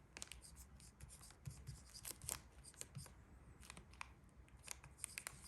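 Faint, scattered small clicks and light scraping of a metal Zippo lighter being handled and turned in the hands.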